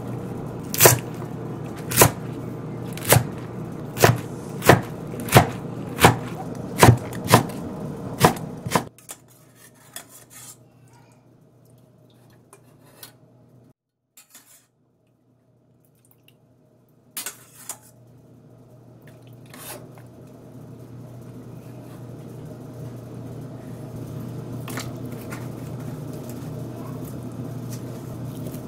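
Kitchen knife chopping vegetables on a wooden cutting board: about ten strokes, roughly one every 0.7 seconds, over a low hum, stopping about nine seconds in. After that come a few light clinks of metal utensils against pans, then a low steady hum that slowly grows louder.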